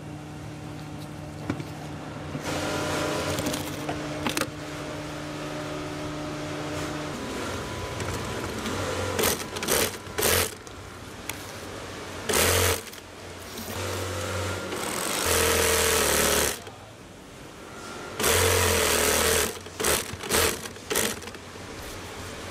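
Industrial sewing machines stitching tent fabric, running in short bursts of a second or two with pauses between, several times through the second half. A steady low hum carries the first several seconds.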